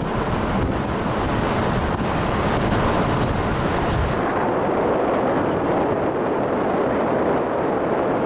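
Wind noise on the microphone and road rumble from a moving vehicle, a steady rushing hiss. About four seconds in it turns duller and the deep rumble eases.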